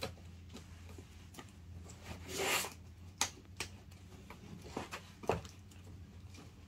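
Cardboard jeans box being handled: a short rasping scrape as the lid slides about two seconds in, then a few light taps and knocks as it is lifted and set upright.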